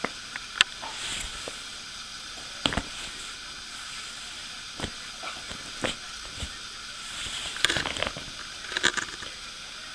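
Woven plastic shopping bag crackling and rustling in short, irregular bursts as a kitten shifts and paws inside it, busiest and loudest near the end, over a steady background hiss.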